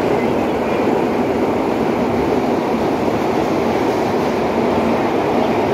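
Steady running noise of a vintage R1/R9 New York subway car heard from inside the car as it travels along the track: a loud, even rumble of wheels on rail and the car's running gear.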